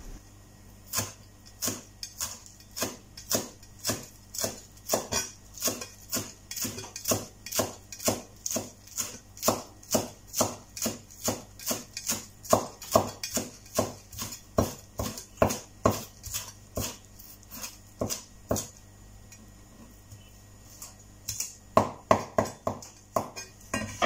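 A cleaver chopping spring onions on a wooden cutting board: steady, even knocks a little under two a second, a short pause, then a quicker run of chops near the end.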